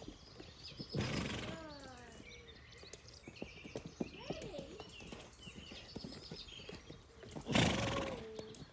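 A horse being lunged, its hoofbeats thudding on soft turf, with a loud neigh that falls in pitch about a second in and another loud burst near the end. Faint bird chirps in between.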